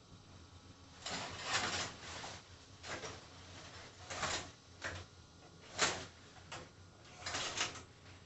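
Hard shower head parts being handled: an irregular series of short scrapes and clicks, starting about a second in.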